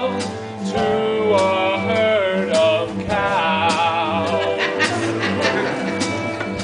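A man singing a slow show tune with long, drawn-out notes over instrumental accompaniment, with short breaks between sung phrases.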